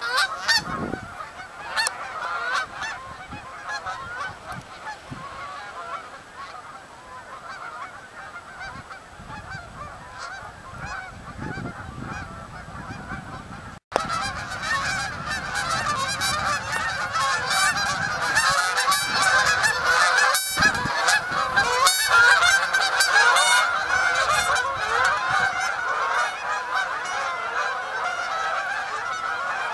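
A large flock of Canada geese honking, many calls overlapping in a constant chorus. The sound breaks off for an instant about halfway through and comes back louder.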